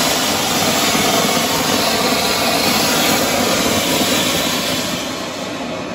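Ground fountain firework (anar) spraying sparks with a loud, steady hissing rush that begins to die down near the end as it burns out.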